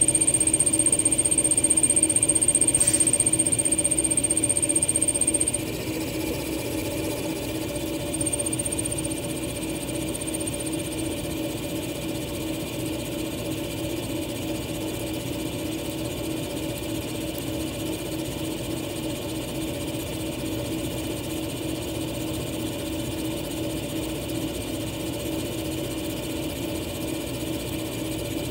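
Small-hole EDM drill sparking a 0.15 mm tube electrode into stainless steel: a high-pitched whine over the steady hum of the machine. The whine cuts off about five and a half seconds in, comes back faintly for a few seconds, and the hum carries on quieter.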